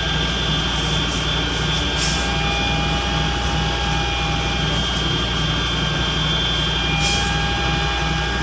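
Concrete mixer truck's diesel engine running steadily with a rhythmic low throb, a steady high-pitched whine over it.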